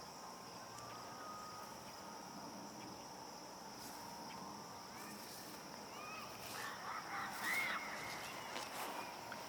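Steady high-pitched trill of crickets, with a few brief chirps and clicks a little past the middle.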